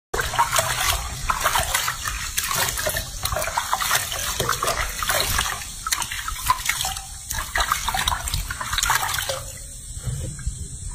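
Water splashing and sloshing in a sink basin as hands scrub a young monkey's wet fur, the splashing easing off about nine seconds in.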